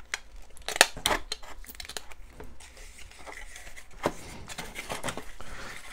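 Thin foam wrapping sheet rustling as it is peeled off a plastic model-kit hull part, with sharp clicks and taps of plastic against the kit box, the loudest a little under a second in and another about four seconds in.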